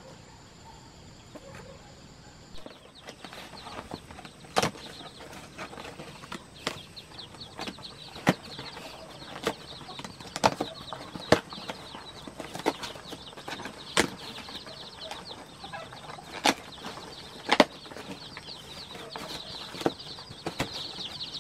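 A crowd of day-old chicks and goslings peeping nonstop inside a ventilated cardboard shipping box, the peeping thickening after a couple of seconds. Sharp cardboard knocks and rustles come every second or two as the box and its flaps are handled and opened.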